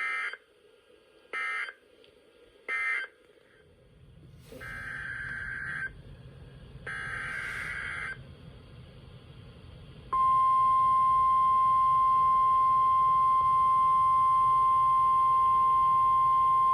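Emergency alert data tones as broadcast on NOAA Weather Radio: three short screechy end-of-message bursts about a second apart, then two longer SAME header bursts announcing the next warning. About ten seconds in, the steady 1050 Hz weather radio warning alarm tone begins and holds at one pitch.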